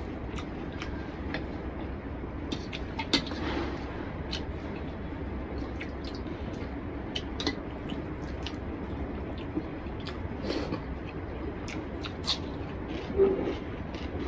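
Eating rice and curry by hand: wet squishing as fingers mix rice on a plate, with chewing and scattered small clicks and smacks over a steady low hum. The sharpest clicks come about three seconds in and near the end.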